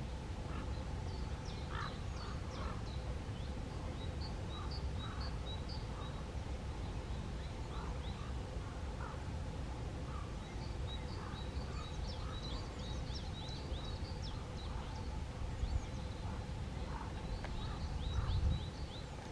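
Birds chirping in quick high series, with a few lower calls, over a steady low rumble that swells near the end.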